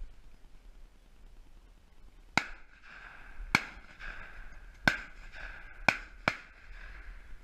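Shotgun shots fired at ducks: five sharp blasts within about four seconds, the last two close together, each with a short ring-out.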